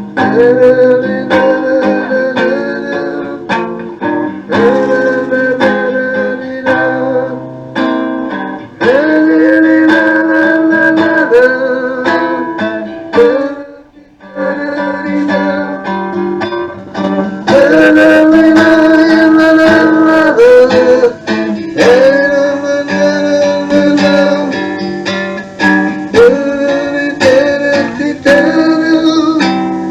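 Recorded pop music with guitar, played back from a cassette tape; it dips briefly about 14 seconds in and then carries on.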